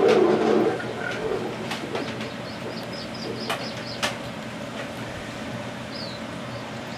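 Wildlife documentary soundtrack with no narration: a low call lasting about half a second at the start, then faint high bird chirps and a few sharp clicks.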